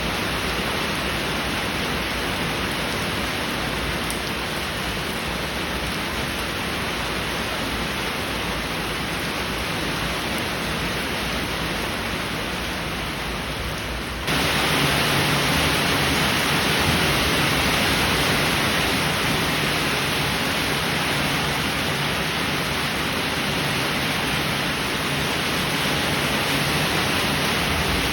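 Steady heavy rain. About halfway through it changes abruptly to louder, brighter rain.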